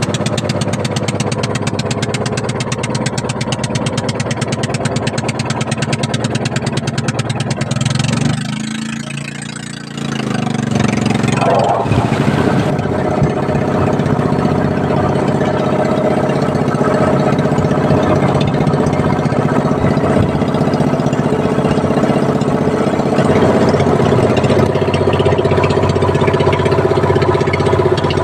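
Small engine of a motorized outrigger boat running steadily under way. It eases off about eight seconds in and picks up again about two seconds later.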